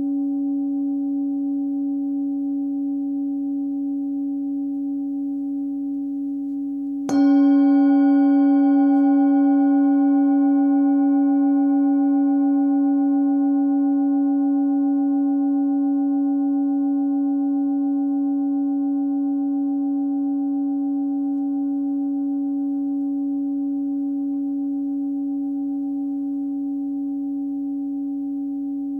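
A 15.8 cm hand-forged singing bowl, pitched at about 282 Hz (C#), ringing with a deep fundamental and several higher overtones. It is struck once about seven seconds in, then rings on and fades slowly with a slight regular wavering.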